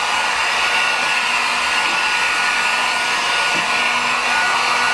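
A Harbor Freight electric heat gun running steadily: a constant rush of air from its fan with a thin, steady whine.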